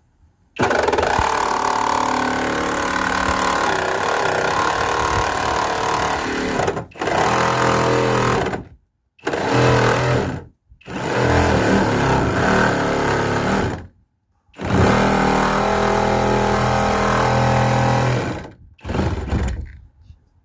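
Jigsaw with a metal-cutting blade sawing through the van's metal side panel, running in several bursts: one long cut of about eight seconds, then shorter runs with brief stops between them.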